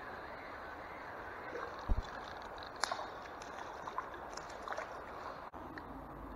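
River water flowing and lapping, a steady rushing hiss with a few small splashy ticks. A low thump sounds about two seconds in.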